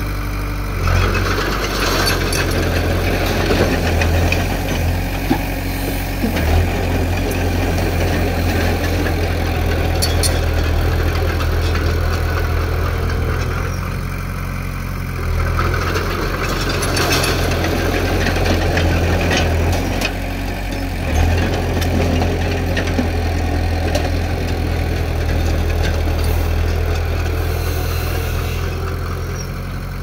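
Diesel engine of heavy earthmoving equipment running continuously, swelling several times under load, with a few sharp knocks.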